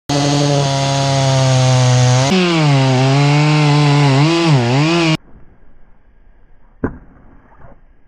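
Stihl chainsaw running at high revs while cutting into a tree trunk, its engine note steady at first, then wavering and dipping in pitch as the chain works through the wood, in two spliced clips. It cuts off abruptly a little after five seconds, followed by a quieter stretch with a single sharp knock.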